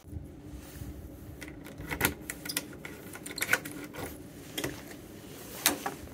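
Keys jangling and a key being worked into and turned in a metal front-door lock, giving a run of sharp clicks and rattles. The loudest click comes near the end as the lever-handle door is opened. A low steady hum sits underneath.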